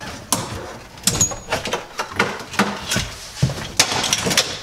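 Plastic dashboard of a 1996 Toyota Supra being wrestled out of the car past its last wiring harness clips: irregular knocks, clicks and scraping of plastic, with a brief high squeak about a second in.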